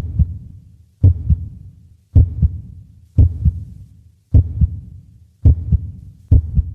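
Heartbeat: steady double thumps, lub-dub, about once a second, each pair a heavy low beat followed quickly by a second one.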